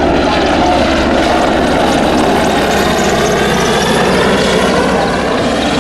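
AgustaWestland AW101 Merlin helicopter flying, its three turboshaft engines and rotors making a loud, steady noise.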